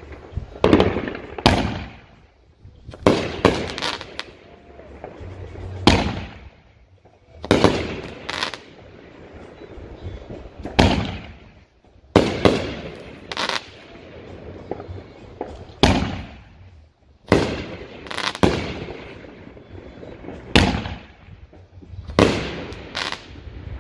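Phantom Fireworks Badassical Blast, a 500-gram nine-shot cake with 3-inch tubes, firing: a series of sharp booms as its shells burst overhead, several coming in quick pairs and triples, each trailing off in an echo.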